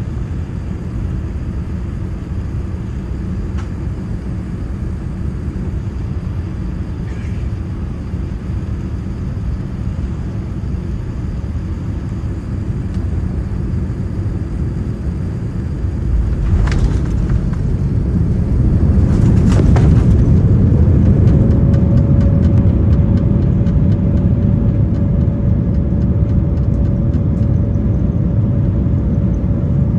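Boeing 787-9 landing heard from inside the cabin: a steady airframe rumble, then a knock and a louder rumble as the wheels touch down and roll on the runway. A second knock follows, then an engine whine rises in pitch and holds steady, typical of reverse thrust spooling up on rollout.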